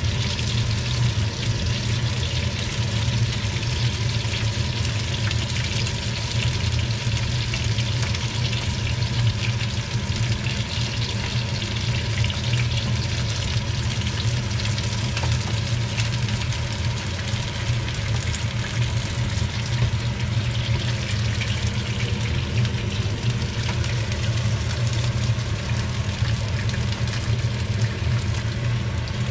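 Prawns sizzling and crackling as they salt-grill in a hot foil-lined tray, with a steady low hum under the crackle.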